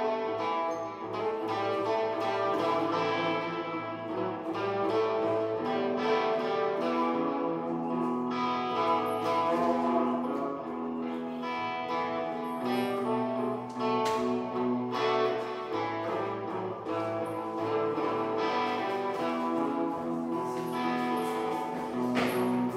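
Guitar played in a blues piece: picked notes and chords over held, ringing notes that continue without a break.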